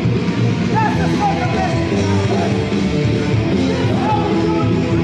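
Loud rock music with singing, playing steadily.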